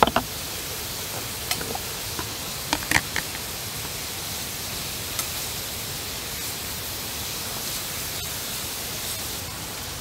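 Thin-sliced beef brisket sizzling in a cast-iron frying pan, a steady hiss, with a few sharp clicks in the first three seconds.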